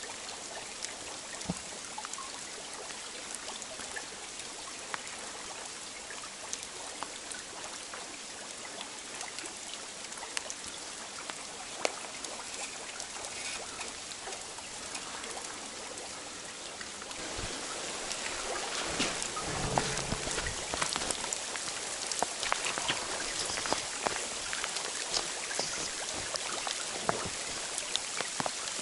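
Sleet, ice and snow mixed, falling on leaves and the ground as many small ticks over a creek flowing steadily. The ticking grows louder and denser a little past halfway, with a short low rumble just after.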